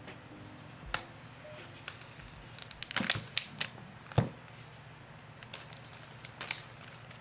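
Wrapping being torn and pulled off a phone box: scattered crackles and taps, a quick cluster about three seconds in, and a sharp snap just after four seconds.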